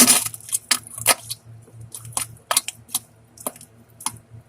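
Diarrhea farts: one loud sputtering blast at the start, then about a dozen short spurts at irregular intervals.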